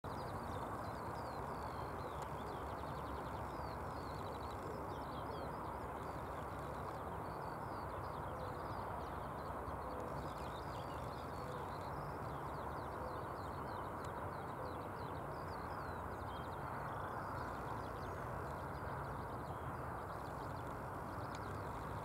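Skylark singing in flight: a continuous stream of rapid, high chirps and trills, over a steady rushing background noise.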